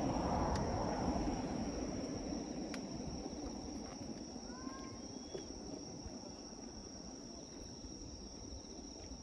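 Night insects, crickets among them, singing a steady high trill. Under it, a low rumble is loudest at the start and fades over the first few seconds, and a couple of faint short chirps come near the middle.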